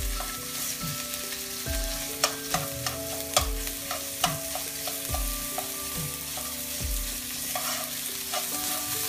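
Salmon and sliced onion sizzling in a hot nonstick frying pan, while metal tongs scrape and press the fish apart against the pan. There are a few sharp clicks of the tongs on the pan near the middle.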